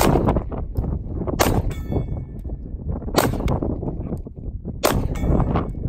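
Four handgun shots fired at a steady pace about a second and a half apart, with steel targets ringing after the shots. Wind rumbles on the microphone throughout.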